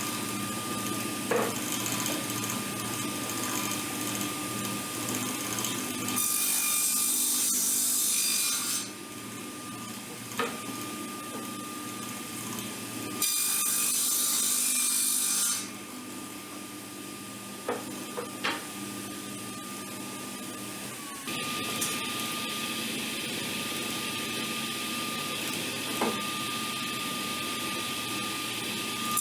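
A woodworking power tool runs steadily with a high whine while wooden boards are fed through it to cut rabbets. The noise gets louder during each cut: two cuts of two to three seconds, then a longer one from about three-quarters of the way through. Light knocks of the boards being handled fall between the cuts.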